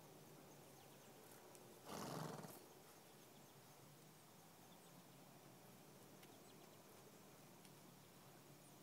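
A filly gives one short snort, a noisy blast under a second long, about two seconds in; otherwise near silence.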